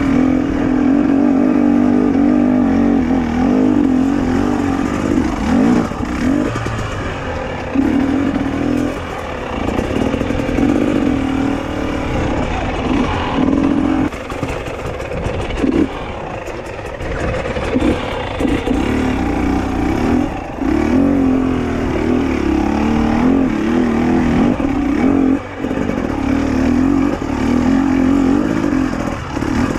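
KTM 250 XC-W two-stroke dirt bike engine worked on and off the throttle at low speed. The note rises and falls and drops away several times between bursts, with scattered knocks.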